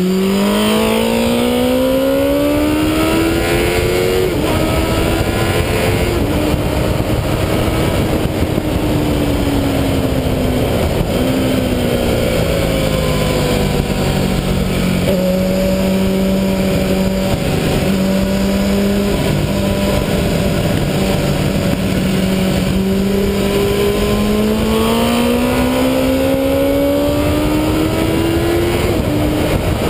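MV Agusta sport motorcycle engine heard from an onboard camera on the fairing, accelerating hard with a rising pitch and upshifts a few seconds in, holding a steadier note through a long corner, then climbing again with another shift near the end. Wind rush over the microphone runs under the engine throughout.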